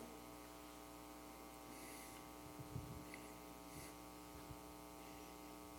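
Near silence: a steady, faint electrical hum, with a few faint soft sounds about halfway through.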